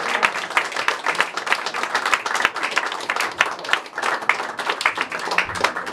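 A small audience applauding, many hand claps overlapping irregularly with no rhythm.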